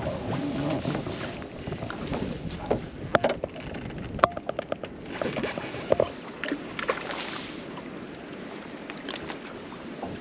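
Wind and water around a small fishing boat, with scattered sharp knocks and clicks from handling gear on deck, including a brief fast run of clicks about four seconds in.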